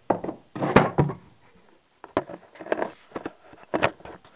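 Irregular clicks, knocks and rustling from handling, with no engine running.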